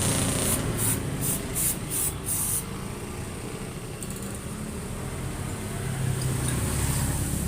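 Honda Vario Techno 125 scooter's single-cylinder engine running at a steady idle, with a high hiss pulsing about three times a second for the first two and a half seconds, then settling into a steady hiss.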